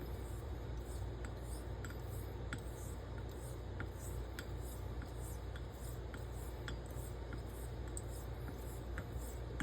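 Straight razor honed on a wet coticule whetstone with light pressure: even, regular scraping strokes of the blade across the stone, with a small tick as the razor is flipped between strokes, over a low steady hum.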